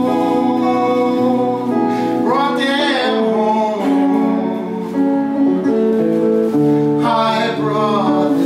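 Background music led by guitar, with held chords changing every second or two.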